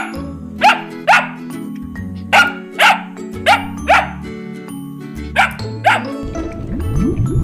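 Dog barking: about nine short, sharp barks, mostly in pairs, over background music with a repeating bass line.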